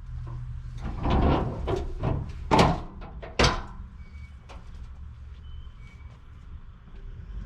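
Rattling and scraping, then two sharp bangs a little under a second apart.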